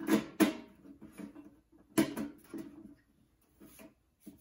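Knocks and clunks of a steel .50 cal ammo can being tipped and handled on a workbench: two sharp knocks at the start and another about two seconds in, with fainter scraping between.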